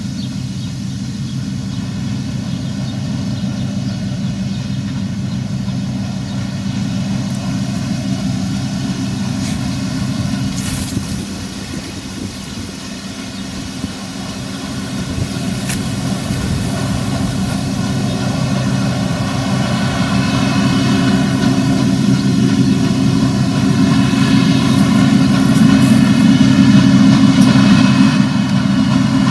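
New Holland combine harvester running as it cuts grain: a steady drone of engine and threshing machinery. It eases off a little about halfway, then grows steadily louder as the machine draws near.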